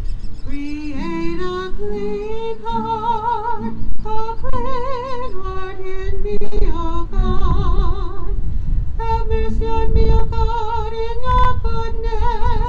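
A woman singing a slow hymn melody with wide vibrato, over acoustic guitar accompaniment; in the liturgy this is the responsorial psalm that follows the first reading.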